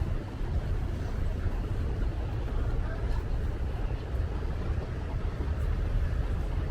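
Outdoor street background noise: a steady low rumble with no distinct events.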